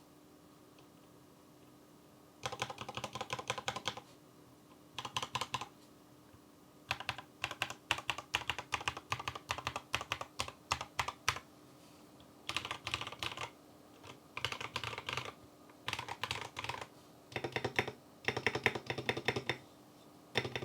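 Typing on a BM65 custom mechanical keyboard fitted with Tecsee Carrot linear switches: rapid runs of key clacks in bursts separated by short pauses, starting about two and a half seconds in.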